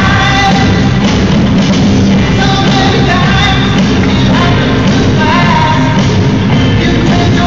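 Rock song with a singer played loud over a hockey arena's sound system during a stoppage in play.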